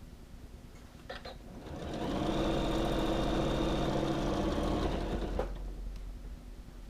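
Janome sewing machine stitching a zipper seam. It speeds up about two seconds in, runs steadily for a few seconds, and slows to a stop, with a couple of clicks just before it starts.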